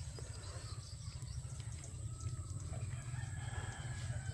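A rooster crowing faintly, one long drawn-out call near the end, over a steady low rumble.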